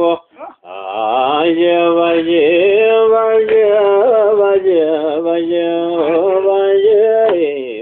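Solo male voice chanting menzuma, the Ethiopian Muslim devotional song, holding long notes that waver and bend in melisma, after a short breath just after the start.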